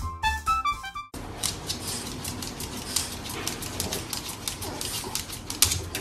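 Piano music for about a second, then a small dog's claws clicking and scratching rapidly and irregularly against a wooden TV stand as it paws and jumps up at the screen, over a steady hiss.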